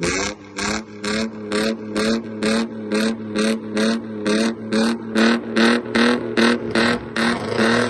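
A car engine revved in quick, repeated throttle blips, about two a second, its exhaust crackling and popping with each blip.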